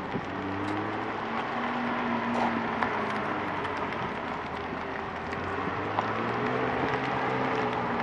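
McLaren supercar's twin-turbo V8 running at low speed as the car rolls slowly along, a steady low engine note that rises and falls slightly in pitch.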